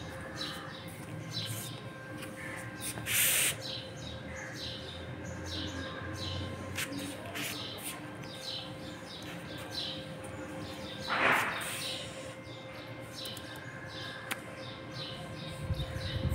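Small birds chirping over and over in short, quick calls, with a faint steady hum beneath. Two brief loud rushing swishes cut in, about three seconds in and again about eleven seconds in.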